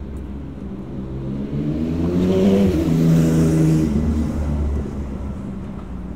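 A motor vehicle passing close by: engine note and road noise swell to a peak about three seconds in and then fade, the pitch dropping as it goes past.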